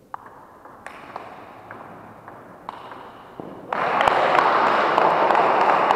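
A table tennis ball clicking sharply off bats and table in a rally, roughly every half second. Then, under 4 seconds in, a much louder burst of spectators' applause and cheering breaks out and takes over.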